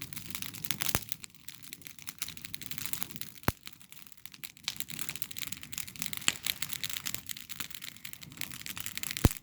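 Campfire of dry wood crackling: a steady run of small snaps with three sharper pops, about a second in, in the middle and, loudest, near the end.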